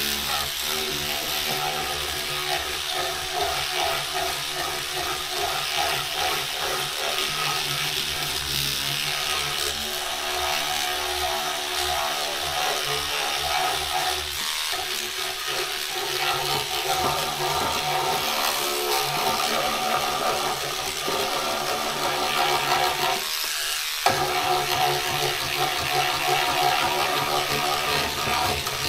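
Small electric cleaning brush whirring steadily as it scrubs the soapy, textured plastic cover of a typewriter.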